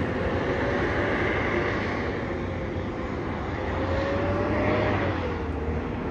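Jet airliner engines running: a steady rush of engine noise with a thin whine that wavers in pitch, rising and dipping about two-thirds of the way through.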